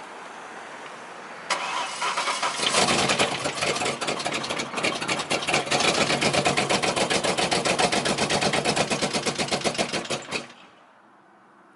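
Ford Mustang GT's 4.6-litre V8 cranked on the starter, catching about a second later and running roughly with a rapid, even pulsing for about eight seconds before it is shut off. The owner takes the sound for a thrown rod.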